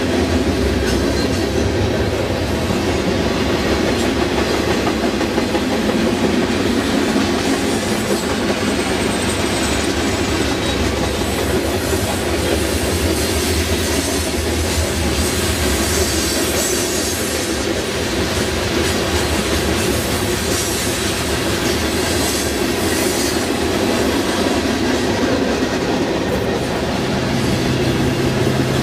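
Freight cars of a Union Pacific train (boxcars, tank cars and covered hoppers) rolling past at speed, a steady, loud rumble and clatter of steel wheels on the rail. About two seconds before the end, the steady engine hum of the approaching rear distributed-power locomotive, an EMD SD70ACe, comes in.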